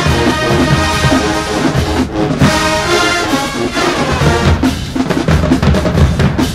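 HBCU-style marching band playing: the brass section holds loud chords over bass drum, then about four and a half seconds in the brass falls back and the drumline's snare and bass drums take over.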